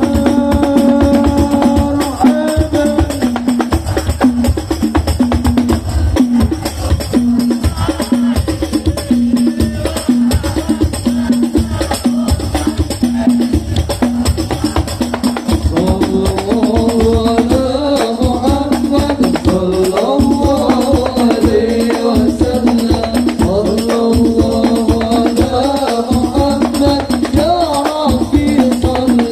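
Sholawat music: rebana frame drums and jingling tambourines beat a dense, steady rhythm over a held drone tone. A voice comes in singing about halfway through.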